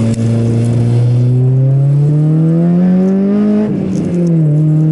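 Loud car engine heard from inside the cabin, rising steadily in pitch as the car accelerates, then dropping suddenly about four seconds in at a gear change and running steady.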